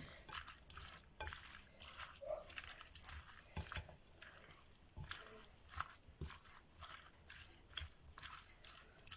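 A wet, sticky mixture of grated ginger, lemon, orange and honey being stirred in a bowl: faint, irregular squishing with light clicks.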